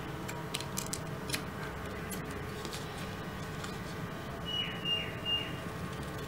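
Scissors cutting through a thin paper card: a few light snips in the first second or so. A little past the middle come three short high chirps, the loudest sounds.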